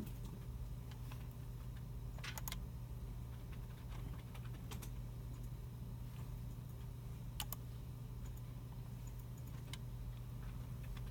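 Computer keyboards and mice in a library computer room: scattered key taps and clicks come in small clusters a few seconds apart, over a steady low hum.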